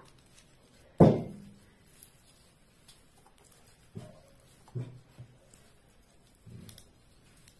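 Handling noise from an artificial wreath and its decorations on a tabletop: a hard thump about a second in, then three softer knocks.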